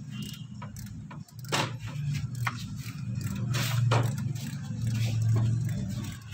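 A few metallic clinks and scrapes of hand tools on car parts, over a steady low mechanical hum that swells twice in the second half.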